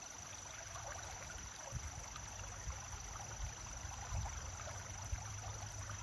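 Fast-moving creek running, a steady even wash of flowing water.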